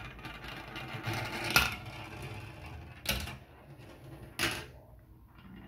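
Plastic marble run: a marble rolling and rattling through the plastic track, with three sharper clacks about a second and a half apart.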